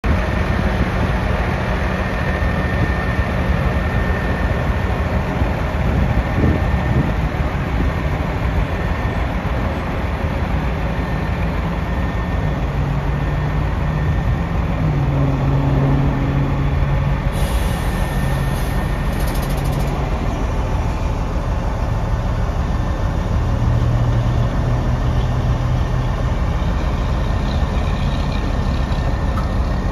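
Freightliner M2 grapple truck's Cummins ISC inline-six diesel running with a steady low rumble. A low hum swells in for several seconds about halfway through and again briefly later on.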